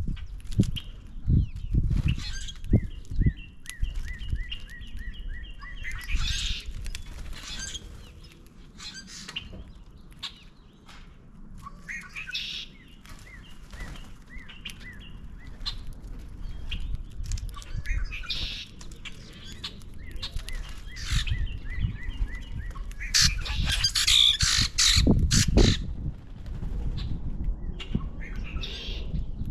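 Common grackles and other feeder birds: harsh calls and squawks mixed with bursts of wing flapping. A quick run of evenly repeated chirps comes twice. The loudest flurry of calls and wingbeats comes near the end.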